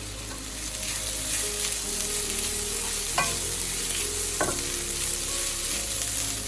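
Onion and spice masala frying in oil with cooked prawns, a steady sizzle as it is stirred, with a spoon knocking against the pan twice about halfway through.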